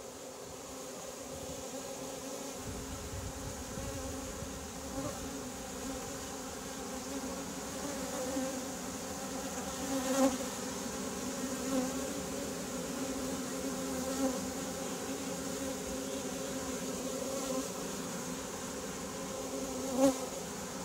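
A freshly caught swarm of honey bees buzzing steadily at the entrance of a wooden nuc box they have just been shaken into. Single bees flying close past the microphone make the buzz swell briefly louder a few times, most sharply about halfway through and again near the end.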